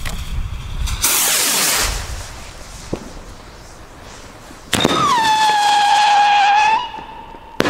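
Pyroland Ignis firework rocket launching with a short hiss about a second in, then a loud whistle that dips slightly in pitch and holds for about two seconds, followed by a sharp crack near the end.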